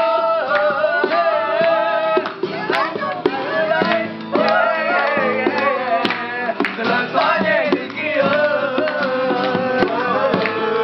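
Acoustic guitar strummed while a group sings along, with a hand slapping the guitar's body like a hand drum, adding sharp strikes over the chords.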